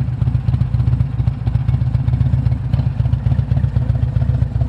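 Motorcycle engine running at a steady cruise: an even low rumble of fast exhaust pulses over road and wind noise.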